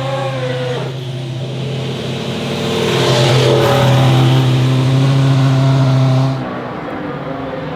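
Ferrari SF71H Formula 1 car's 1.6-litre turbocharged V6 running hard and passing, loudest about three seconds in with its pitch falling, then dropping away suddenly about six and a half seconds in.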